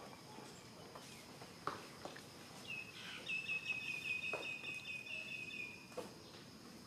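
A bird's rapid, high trill lasting about three seconds, its pitch sinking slightly toward the end, with a few faint clicks.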